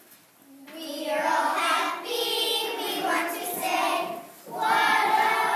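A group of young children singing together, starting about a second in, with a brief break a little past four seconds before the singing goes on.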